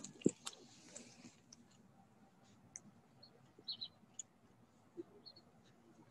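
Faint outdoor quiet with scattered sharp clicks, the strongest near the start, and a few short high chirps from small birds a little past halfway.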